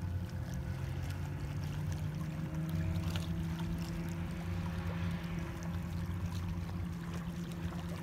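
An engine running steadily with a low drone; one of its tones rises slightly about two and a half seconds in.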